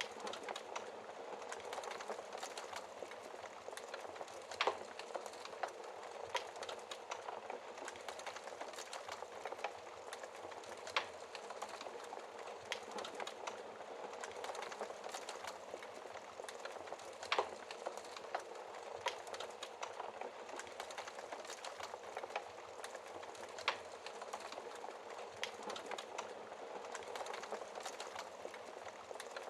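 Wood fire burning in a fireplace: a steady hiss with many small crackles, and a sharper pop about every six seconds.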